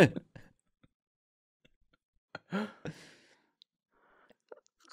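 A person sighing once, a short voiced, breathy exhale about two and a half seconds in, with a few faint clicks afterwards.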